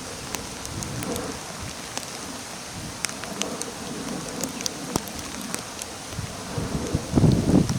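Steady rain falling, with scattered sharp drips of individual drops. A louder low rumble swells near the end.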